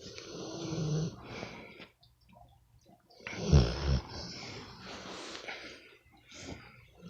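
Pit bull snoring in its sleep: two long snoring breaths, the second louder and deeper, starting about three seconds in.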